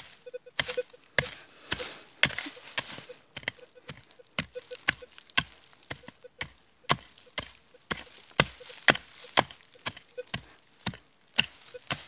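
A hand pick striking soil and stones again and again, digging out a metal detector target. The sharp strikes come about two a second, mostly in runs of three with short pauses between.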